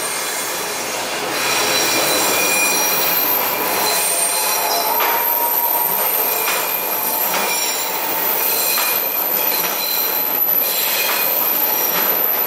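Toronto Line 3 Scarborough RT train (UTDC ICTS Mark I cars) passing on a tight curve, its steel wheels squealing against the rails. Several high, steady squeal tones sit over the rolling noise and grow louder about a second and a half in. A series of clicks from the wheels over the track runs through the second half.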